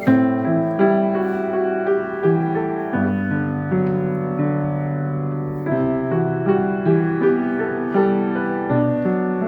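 Solo piano playing a slow melody with chords over held bass notes, a new note or chord struck about every three quarters of a second.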